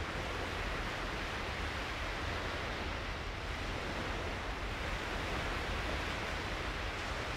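Steady, even rushing noise with a low rumble beneath it and no tones or distinct events.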